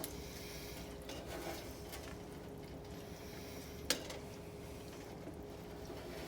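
Pot of onion soup simmering quietly with wine, stock and thyme, a low steady hiss, with one sharp clink about four seconds in.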